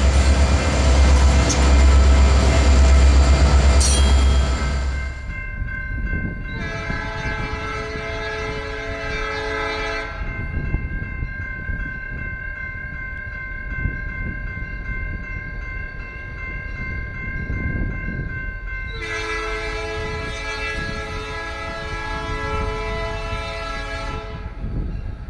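Nathan P3 three-chime locomotive air horn, new-cast bells, blowing long: the full chord sounds from about six seconds in, thins to a higher held tone for about nine seconds, then comes back full until near the end. Before it, the loud low rumble of a passing train.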